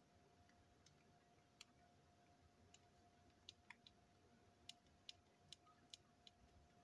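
Near silence with faint, scattered clicks and taps: small tools and plastic toy parts being handled and set down on a tabletop.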